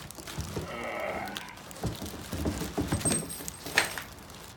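Pressure washer wand and attachments being handled: irregular light clicks, knocks and rattles, a little sharper near the end.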